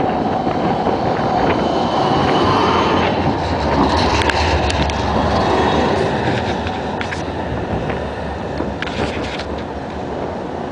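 Siemens Combino low-floor tram passing close on street track, its wheels and running gear rumbling loudest a few seconds in, then fading as it moves away, with a few sharp clicks.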